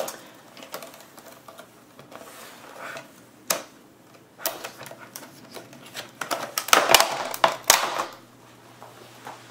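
Stiff clear plastic clamshell packaging being pried apart and pulled open by hand: scattered clicks and crinkles, then a dense run of loud crackling about six to eight seconds in as the shell comes apart.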